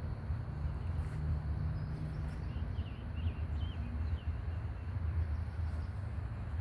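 A steady low rumble with a few faint, quick bird chirps in the middle.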